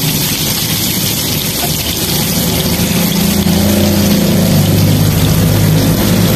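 Chicken pieces deep-frying in plenty of hot oil, a steady loud sizzle. A low hum runs underneath and grows stronger about three seconds in.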